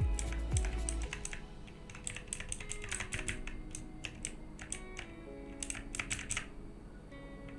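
Computer keyboard keys tapped in quick, irregular clicks for about six and a half seconds, over background music.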